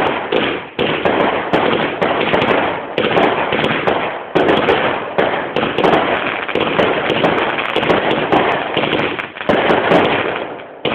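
Fireworks going off in quick succession: a dense, continuous run of bangs and crackling pops, with a sharp new burst every second or so.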